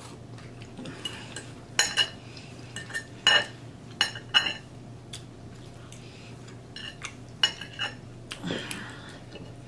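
A metal fork clinking and scraping against a dinner plate in a dozen or so irregular short clinks, the loudest bunched in the second to fifth seconds.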